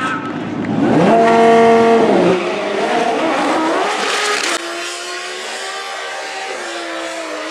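Twin-turbo Audi R8 V10 on a drag run at full throttle: the engine note climbs in pitch, holds, dips and climbs again as it pulls through the gears. About four and a half seconds in the sound drops abruptly to a steadier, more distant engine drone.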